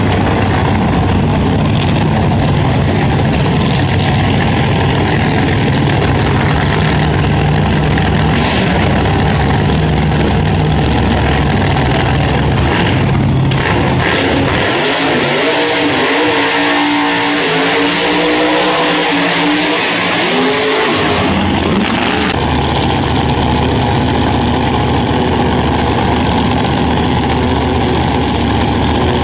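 Drag-racing car engine running loudly, with a few seconds of rising and falling revs in the middle.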